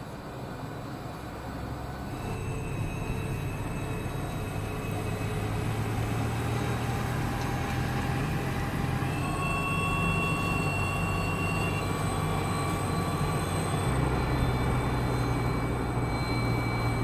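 Mercedes-Benz Actros hydrogen fuel-cell truck driving, its electric drive giving a steady high whine over a low rumble of tyres and drivetrain, growing louder as it approaches.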